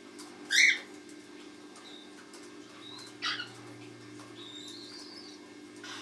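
Cockatiels calling: a loud short screech about half a second in and another, shorter one a little after three seconds, with a few soft whistled chirps between them. A steady low hum runs underneath.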